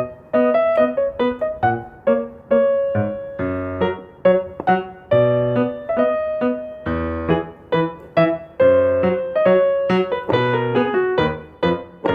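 Background piano music: a gentle melody of single notes over low bass notes, each note struck and then fading.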